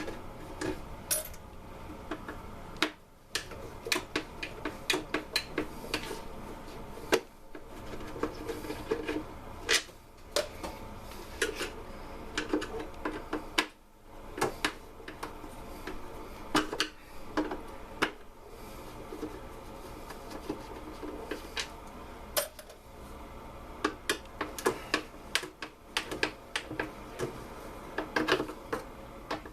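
Irregular clicks and clatter of hand tools, screws and plastic housing parts while the fan shroud of a Stihl SR 420 backpack blower is taken apart, with brief pauses between bursts of handling.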